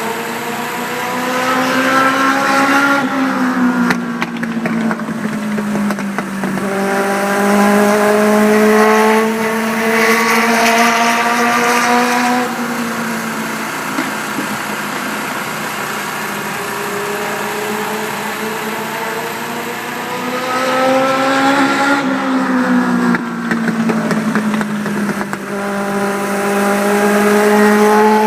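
Race car engine running at practice pace on a short oval. It climbs slowly in pitch under power and drops sharply when the driver lifts, about three times, as the car laps the track.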